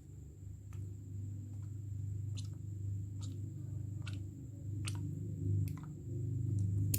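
Drops of a herbal remedy falling one by one from a dropper bottle into a glass of ginger drink: a soft click about every second, over a steady low hum.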